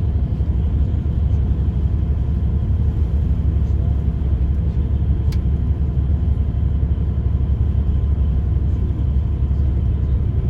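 Bus in motion heard from inside the cabin: a steady low rumble of engine and road noise, with a single faint click about five seconds in.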